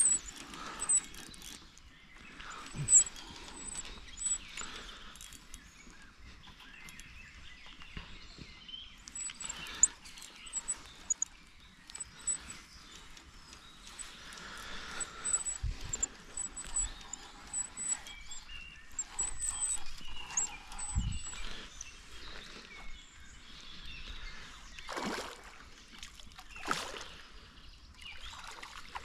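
Quiet outdoor ambience with short, high bird chirps now and then, and a few brief knocks and rustles.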